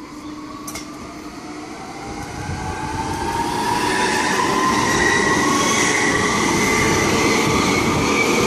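RET RSG3 two-car RandstadRail metro train running past at close range, with steel wheels rumbling on the rails. Its traction motors whine in several tones that climb steadily in pitch as it picks up speed. The sound grows louder over the first four seconds, then holds.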